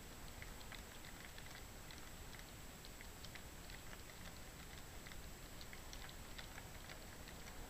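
Six-car N gauge Blue Pullman model train running along the track: faint, irregular light clicks several times a second as its wheels pass over rail joints and points, over a steady hiss.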